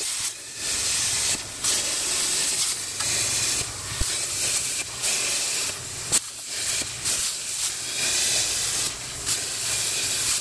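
Arccaptain Cut 50 plasma cutter's arc hissing steadily as the torch burns letters into a steel frame rail, with a few brief dips in the hiss.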